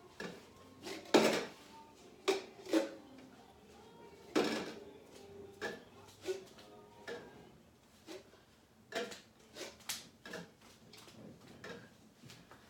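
Cups being handled and set down into a stack: a series of irregular light clacks and knocks, a few louder ones about a second in and near four and a half seconds.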